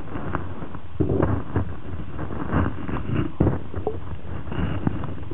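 Muffled underwater sound of moving water: a steady low rumble with irregular knocks and gurgling splashes.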